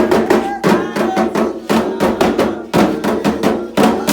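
Candomblé atabaque drums playing a steady, fast rhythm of strokes, the toque for Oxumarê, with voices singing over them.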